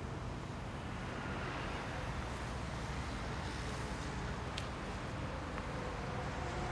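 Steady low rumbling background noise with no clear source, with a faint click about four and a half seconds in.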